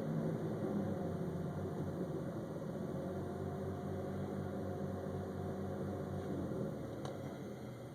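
2000 Mitsubishi Montero Sport Limited's V6 engine running on the throttle with an uneven, pulsing beat, the revs dropping back about seven seconds in. The RPM will not hold steady, which the owner guesses is the fuel injectors.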